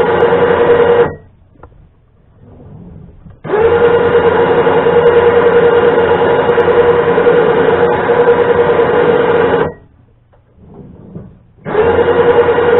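Electric winch motor running in stretches with a steady whine, winding cable onto the drum; it stops about a second in, runs again for about six seconds, stops, and starts again near the end.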